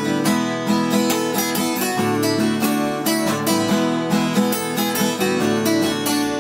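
Acoustic guitar strummed in a steady rhythm, the chord changing about once a second.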